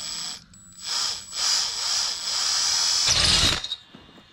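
Power drill boring a 3/8-inch hole through a metal swingarm extension plate. It runs in three stretches with two short stops, then gives a rougher burst as the bit breaks through and cuts off near the end.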